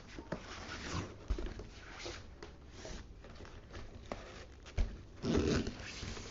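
Cardboard packaging of a microphone box being handled and opened: a run of short scraping and rustling strokes with a few light knocks, the loudest stroke just over five seconds in.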